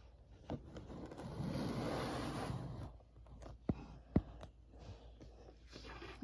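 Handling noise of small plastic toys and the recording device on a tabletop: a soft scraping rustle for about two seconds, then a few light clicks and taps.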